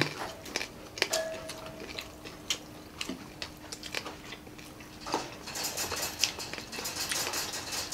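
Close-up eating sounds: chewing, lip smacks and scattered mouth clicks as several people eat fried pork and rice by hand. The smacking grows denser over the last couple of seconds.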